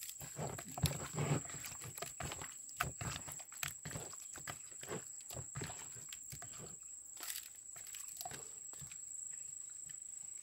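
Hand mixing seasoning into raw fish pieces in a plastic bowl: irregular wet squishes and light knocks against the plastic, the loudest about a second in, over a steady high-pitched whine.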